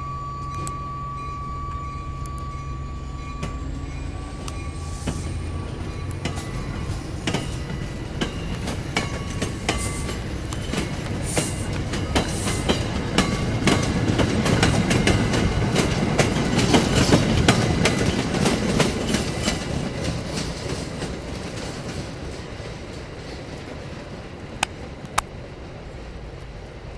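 MBTA commuter rail coaches rolling past, their wheels clicking over the rail joints, growing loudest about halfway through and then fading as the train draws away. A thin high-pitched ring sounds at the start and dies out over the first several seconds.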